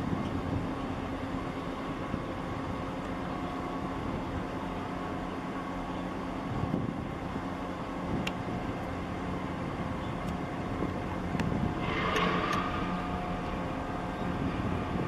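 Steady low drone of a large container ship's engines and machinery as it passes close by at slow harbour speed, with several held tones in it. A brief louder rushing noise rises about twelve seconds in, with a few faint clicks around it.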